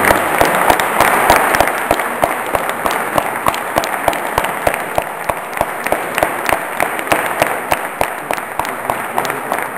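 Audience applause thinning into steady rhythmic clapping, sharp even claps keeping a quick beat.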